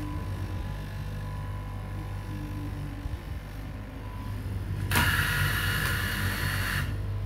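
Straight-knife fabric cutting machine running, its electric motor giving a steady low hum as the reciprocating blade cuts through a stack of fabric layers. About five seconds in, a loud hissing noise rises over it for about two seconds and then cuts off.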